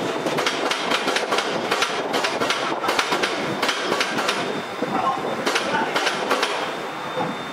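Steady rattling and clattering from an overhead crane hoist lifting a CNC router on straps, with a dense run of small knocks and clicks.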